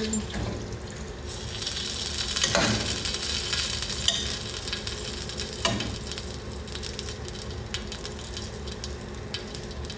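Food sizzling in a hot saucepan on the stove while it is stirred, with a few knocks of the utensil against the pan; the sizzle is strongest in the first half.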